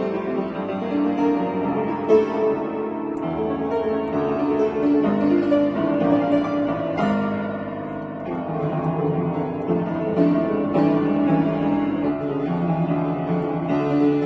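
Upright piano being played: a continuous passage of notes with no pauses.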